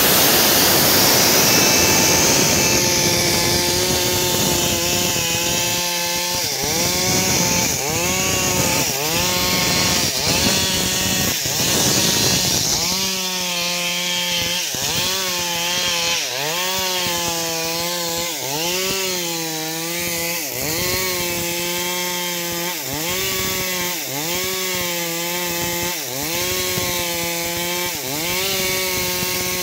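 Stihl MS 382 two-stroke chainsaw at full throttle, ripping lengthwise into a log. The engine pitch dips and recovers about once a second as the chain bites into the wood and eases off.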